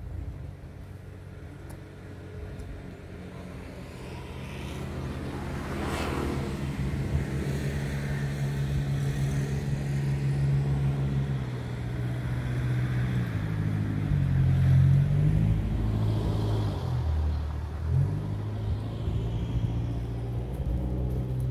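A motor vehicle engine running close by. It grows louder over the first several seconds, and its pitch shifts up and down in the second half as the vehicle moves.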